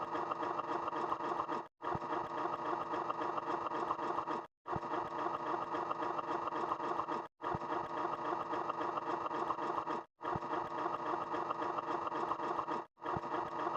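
A short sound-effect clip played again and again, each play about three seconds of dense, steady sound followed by a brief silent break before it repeats.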